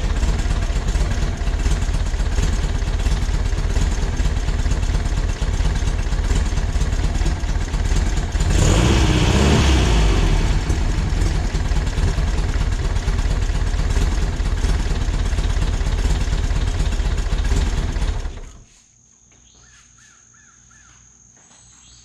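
A 1968cc air-cooled VW flat-four engine running steadily. It swells louder briefly about nine seconds in, then is switched off and cuts out near the end.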